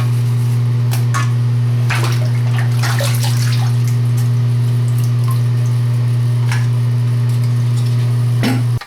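A steady, loud low hum from a small electric appliance, with water splashing and small clicks over it. It starts and cuts off abruptly.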